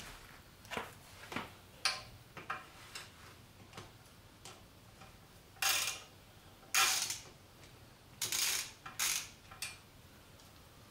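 Hand socket ratchet clicking in about a dozen short, irregular runs of back-strokes, the loudest a little past halfway, as the motorcycle's exhaust header nuts are tightened.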